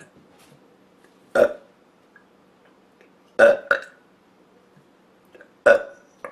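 A woman burping, brought on by drinking soda: three loud burps about two seconds apart, the middle one a double, and a short one at the very end.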